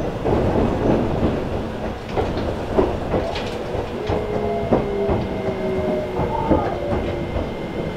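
Alpico Kotsu 20100 series EMU heard from inside the car as it slows toward a station: running rumble with wheels clicking over rail joints. About halfway through, the whine of its Toyo IGBT-VVVF inverter and motors sets in as a few steady tones drifting slowly down in pitch while the train brakes.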